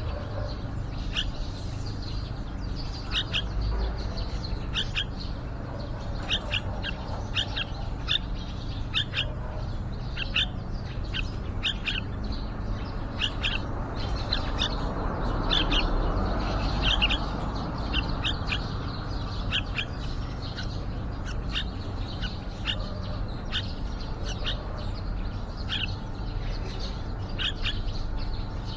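Yellow-vented bulbul chirping: short, high, sharp calls repeated about once or twice a second, over a steady low rumble that grows louder for a few seconds around the middle.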